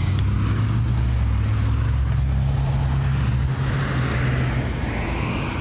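Road traffic passing close by: a steady low engine hum, then tyre noise swelling as a vehicle goes past near the end.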